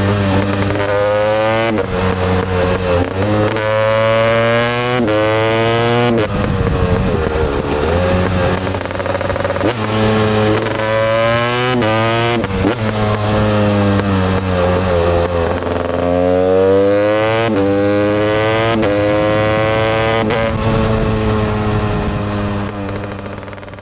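Husqvarna TE 250i two-stroke motorcycle engine revving, its pitch climbing again and again and dropping sharply between rises. The sound fades out at the end.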